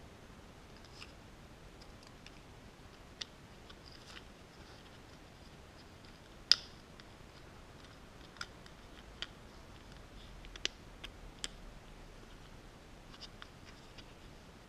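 Scattered small plastic clicks and taps from a mini quadcopter's plastic frame being handled and fitted together, with one much sharper click about halfway through.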